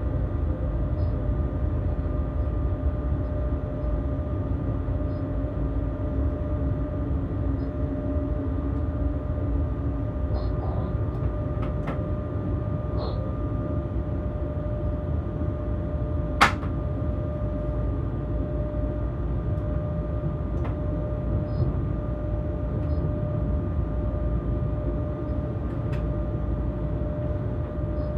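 Cab interior of a BR 186 electric locomotive on the move: a steady low rumble of the wheels on the rails with a constant thin whine from the traction equipment. A single sharp click stands out about halfway through.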